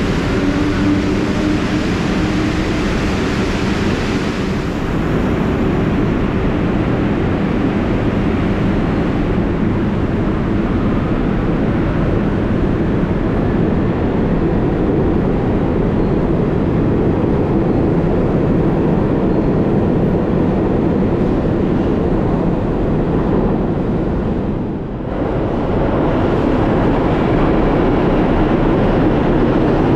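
New York City subway train running along the track through the station, a steady loud rumble of wheels and cars with no let-up except a brief dip about 25 seconds in.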